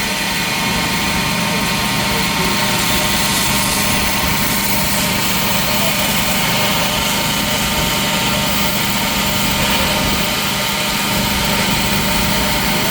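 Workshop machinery running steadily: a loud, even hum with a dense hiss over it.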